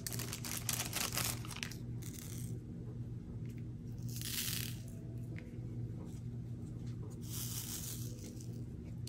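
Diamond-painting drills poured from a small plastic bag into a plastic sorting tray, a quick patter of tiny clicks, then the tray is shaken with two short rattling swishes, about four and seven and a half seconds in. A steady low hum runs underneath.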